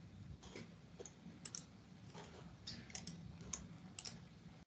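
Faint, scattered keystrokes on a computer keyboard, a few irregular clicks a second over a low room hum.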